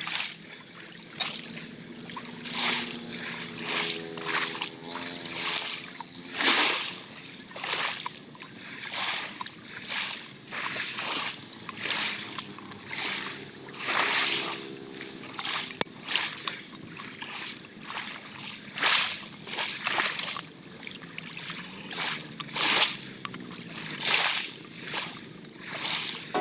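Thin aluminium beverage can being pierced by hand with a sharp metal point, each hole punched through the can's end with a short, sharp crunch, about one a second.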